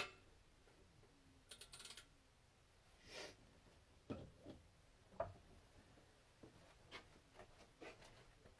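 Faint handling sounds from an engine teardown on a bench and stand: a sharp metallic click at the start, a short rapid rattle, a rub and two low knocks as tools and engine parts are picked up and set down.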